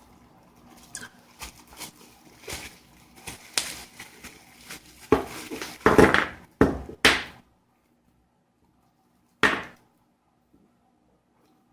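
Packaging being handled during an unboxing: a string of short rustles, crinkles and knocks that grows louder, with the loudest handful about five to seven seconds in and one more about nine and a half seconds in.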